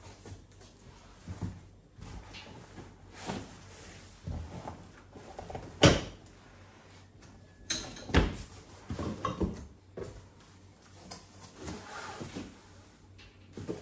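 Cardboard box being unpacked: a cardboard lid and box flaps lifted, scraped and set down, giving scattered knocks and scrapes. The loudest is a sharp thump about six seconds in, with another about two seconds later.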